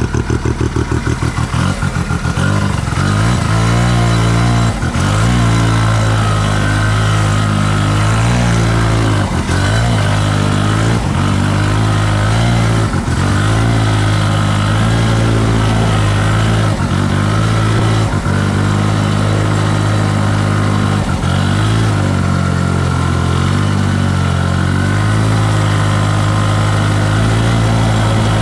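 The Wankel 303 rotary engine of a 1971 Arctic Cat Panther snowmobile picks up from a pulsing idle within the first two seconds and then runs steadily under load while riding. Its note dips briefly and recovers many times along the way.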